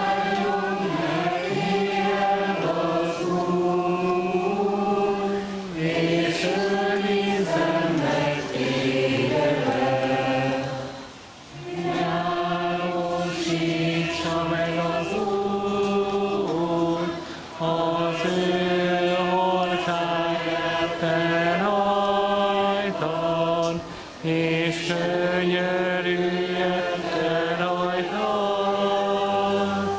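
A group of voices singing a song together in long, held notes, phrase by phrase, with short breaks between phrases.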